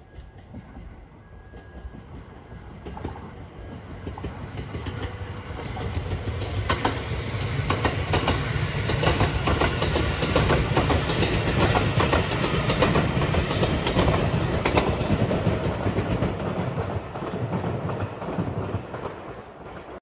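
Rapid Marine Liner electric train passing. Its running noise builds over the first several seconds, peaks with a rapid clickety-clack of the wheels over rail joints, and eases off near the end.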